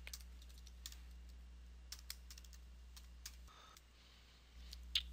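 Scattered, irregular clicks of computer keyboard keys being pressed, over a low steady electrical hum that drops out briefly near the end.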